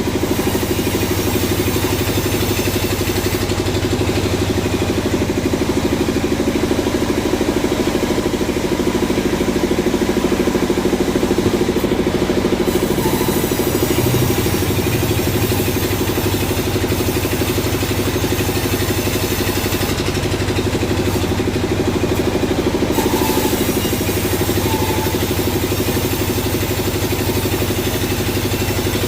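Sawmill machinery running with a steady, loud engine drone that holds an even pitch.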